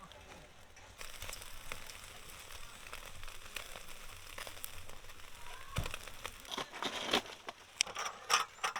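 Meat sizzling on a camp grill, a steady hiss. Several sharp clicks and knocks come over the last few seconds.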